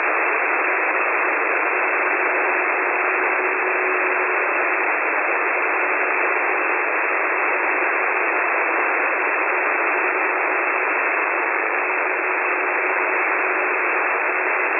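Shortwave radio receiver static tuned to the UVB-76 'Buzzer' station: a steady hiss with a faint, steady low tone under it and no buzz tones.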